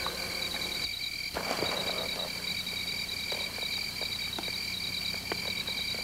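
Night-time chorus of crickets and frogs: a steady, high, pulsing trill, with a few faint clicks.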